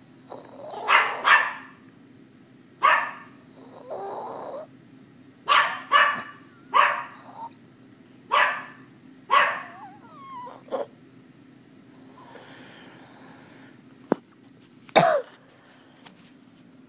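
A dog barking in short, irregular barks, about ten in all, most in the first ten seconds, then a long pause before one last bark near the end.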